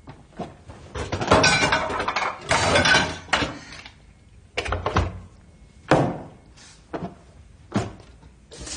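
Kitchen clatter of dishes and utensils being handled on a counter: a rattling stretch in the first few seconds, then separate sharp knocks about once a second.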